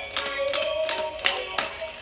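Electronic tune from a battery-powered dancing dog toy, a simple melody over sharp clap-like beats, about five in two seconds.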